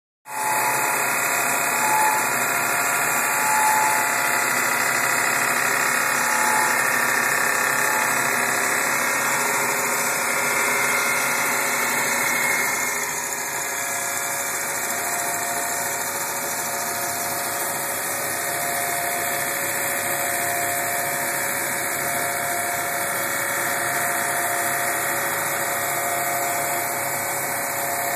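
CNC wood-turning lathe spinning a wooden spindle while its cutter carves a profile into it: a steady machine drone with the hiss of wood being cut. The sound drops a little about halfway through.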